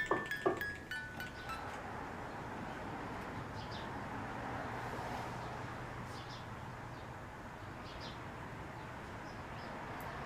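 Chime notes ringing and dying away over the first second or so, then a steady faint hiss with a few faint short chirps.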